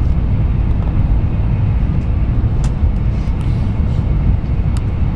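Steady low rumble of a train running at speed, heard from inside the carriage, with a couple of faint clicks.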